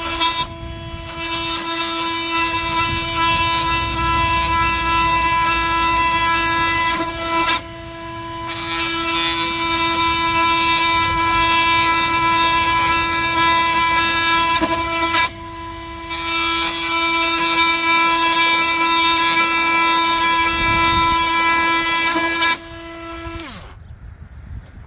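Milwaukee M18 Fuel oscillating multi-tool with a wide 1 3/4-inch wood-cutting blade, plunge cutting through a pine 2x4 with a high, steady buzz. The pitch holds under the load and the tool does not stall; the sound drops briefly twice and stops near the end.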